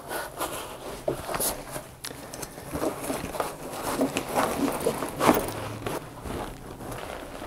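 Nylon webbing straps of a canoe barrel harness being pulled tight through their buckles: irregular rustling, scraping and clicking of straps, buckles and the nylon pouch against the plastic barrel.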